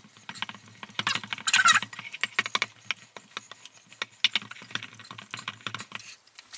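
Spatula scraping and knocking around a stainless steel mixing bowl as a thick cream cheese and peanut butter filling is stirred: a quick, irregular run of short scrapes and clicks, with a longer scrape about one and a half seconds in.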